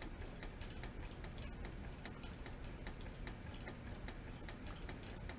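Faint light clicks and ticks, a few each second, over a low steady hum.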